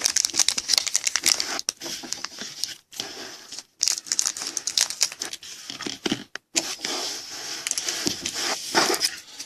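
Wrapper of a Panini Prizm football card jumbo pack being torn open and crinkled by hand, in several crackling stretches with short pauses between them.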